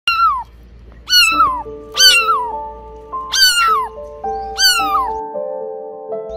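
A young kitten meowing loudly and repeatedly, five high cries in quick succession, each falling in pitch: the distress crying of a kitten separated from its mother. Soft background music with long held notes plays underneath.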